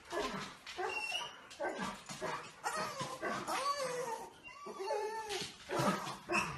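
A dog whining and yipping in a run of short cries that waver in pitch.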